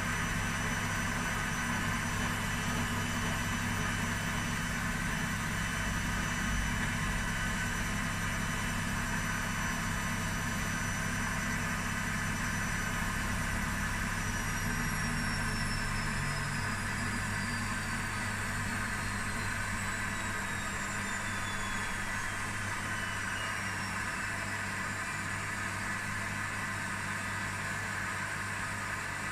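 Washing machines running with a steady mechanical hum. About halfway through, a high motor whine starts falling steadily in pitch as the drum slows down.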